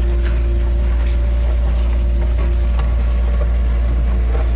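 Cat 303.5 mini excavator's diesel engine running steadily while digging, a strong low hum with a steady whine above it.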